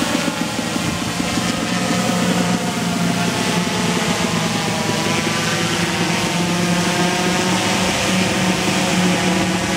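Porter OctaQuadPlane drone flying overhead, its propellers giving a steady drone with a slightly wavering hum.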